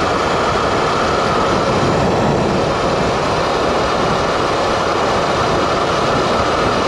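Steady rush of wind and road noise from riding a Sur-Ron electric motorbike at road speed, the wind blowing across the microphone.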